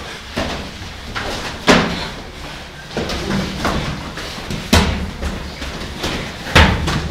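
Gloved punches and kicks landing on padded chest protectors and headgear during sparring: irregular sharp smacks, the three loudest a couple of seconds apart.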